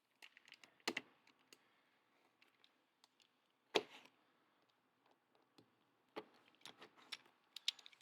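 A run of light clicks and taps, with one louder crack about four seconds in and quicker clicking near the end.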